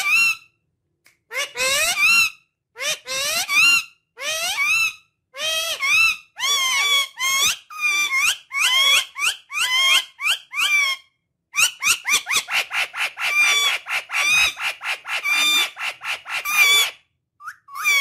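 Indian ringneck parakeet calling: a series of harsh, rising screeches about one a second, then a fast run of short chattering notes from about twelve seconds in until near the end.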